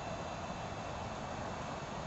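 Steady background noise, an even rumble and hiss with no distinct event in it.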